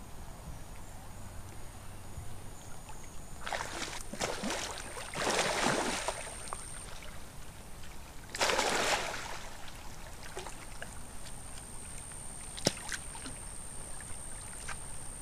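Water splashing and sloshing as an alligator thrashes in shallow muddy water with a python coiled around its head, in two bursts about four and eight seconds in. A single sharp click comes near the end.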